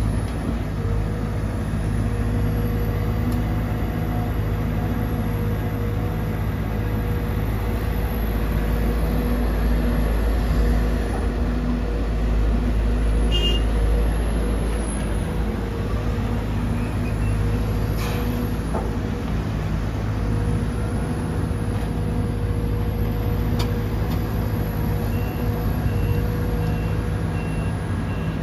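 Diesel engines of a Sumitomo SH210-6 excavator and a dump truck running steadily while the truck is loaded, with a couple of sharp knocks in the middle. Near the end a short run of evenly spaced high beeps starts.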